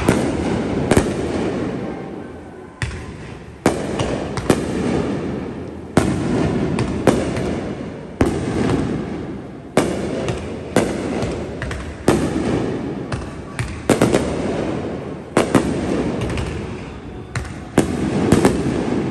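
Aerial firework shells bursting overhead: a rapid series of loud, sharp bangs, roughly one a second and sometimes two close together, each trailing off into a rumble and crackle that fills the gaps between them.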